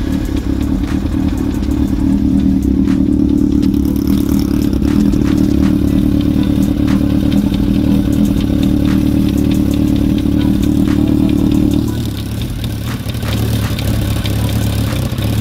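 1998 Yamaha R1's inline-four engine running just after starting, at a raised idle that drops to a lower idle about twelve seconds in. A rapid knocking from the rear of the engine runs through it.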